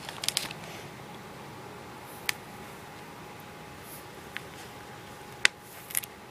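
A few scattered sharp clicks of plastic pony beads knocking together as a bead is strung onto the cord, the loudest about five and a half seconds in, over a steady quiet hiss.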